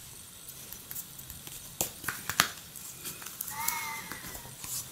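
Quiet handling of a phone wallet case: a few sharp clicks and light rustles as the flip case is opened and turned over in the hands. About three and a half seconds in, a brief high-pitched squeak.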